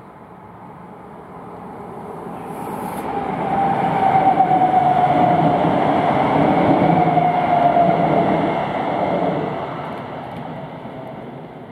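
ICE train passing close by over a railway bridge: a rumble of wheels and running gear that builds over about four seconds, stays loud for several seconds and then fades as it moves away. Through the loudest part runs a steady whine that sinks slightly in pitch.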